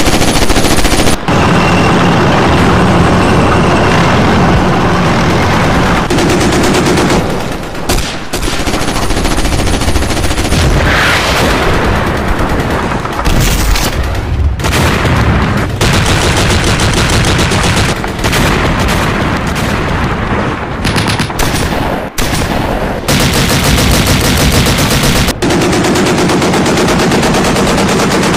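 Machine-gun fire in long, very rapid bursts, loud and nearly continuous, with several abrupt cuts between passages of battle sound.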